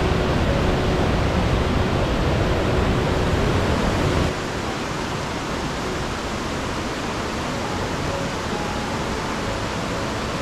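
Verzasca river rushing over rocky rapids, a loud, steady white-water noise. About four seconds in it cuts abruptly to a quieter, even rush of the river heard from the trail.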